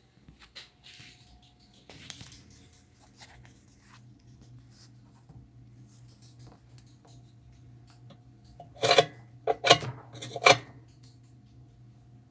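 Handling noises of tools and parts: light clicks and rustles over a steady low hum, then three loud knocks in quick succession about two-thirds of the way through.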